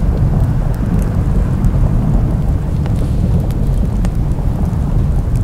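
Added sound effect of a large oil-well fire burning: a steady deep rumble with scattered faint crackles.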